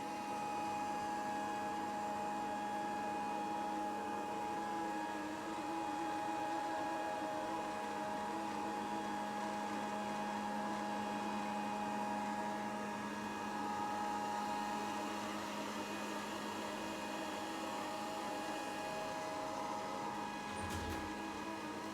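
Grundig VCR 2131 robot vacuum running: a steady motor and fan hum with a fixed whine, and a brief thump near the end.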